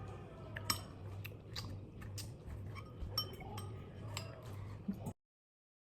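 Forks clicking and clinking against bowls while people eat noodles, with a few small eating noises over a low steady hum. The sound cuts off abruptly to silence about five seconds in.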